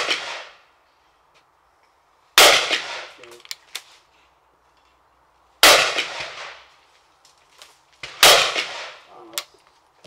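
Hammer shotgun fired three times, roughly every three seconds, each shot ringing out in a short echo. Light clicks are heard between shots.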